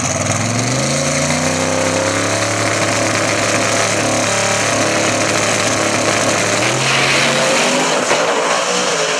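Drag race car engine running hard at high revs. Its pitch climbs over the first couple of seconds and then holds, over a loud rushing exhaust noise.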